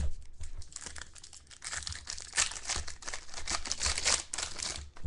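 Trading card pack wrapper crinkling and tearing as a pack is opened by hand, in a run of dense crackles lasting about two seconds.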